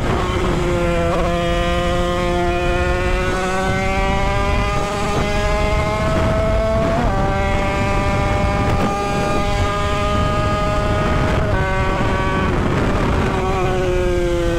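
Tuned 50cc Derbi two-stroke motorcycle engine running hard at high revs, its whine climbing slowly with the throttle held open. The pitch dips briefly about a second in, again around seven seconds and again near eleven seconds, as it changes gear.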